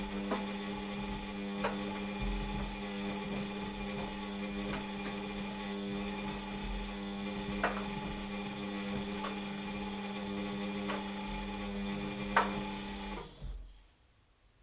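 Washing machine motor turning the drum with a steady hum, with scattered light knocks about every second and a half. The motor cuts off about 13 seconds in.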